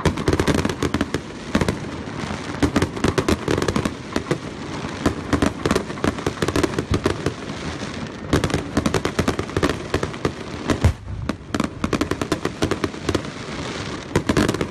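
Fireworks going off in quick succession: a dense, unbroken stream of crackling pops and bangs, with a few sharper, louder bangs scattered through.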